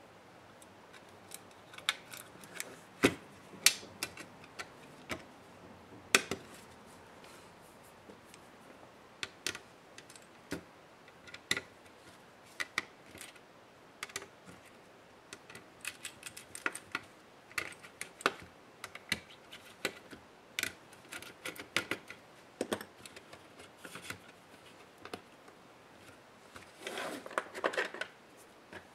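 Laptop motherboard parts being handled by hand on a work table: scattered sharp clicks, taps and light scrapes of plastic and metal, with a short denser run of rustling clicks near the end.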